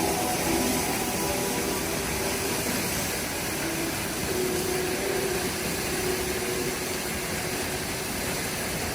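Steady, even rushing of a waterfall, with no break or change in level.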